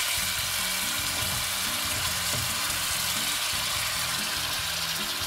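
Chicken broth pouring from a can into a hot pan of frying mashed tofu and shrimp, a steady hiss of liquid.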